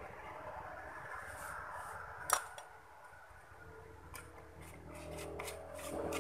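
Faint background with one sharp click about two seconds in and a few lighter ticks later, like small objects being handled; a low steady hum rises in near the end.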